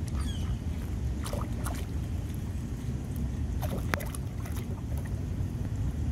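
Steady low rumble of wind on the microphone beside a duck pond. A few short bird calls cut through it: small falling chirps just after the start, and sharper calls about a second and a half and four seconds in.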